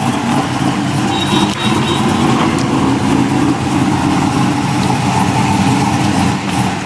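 GMC Sierra pickup's engine running steadily at low revs.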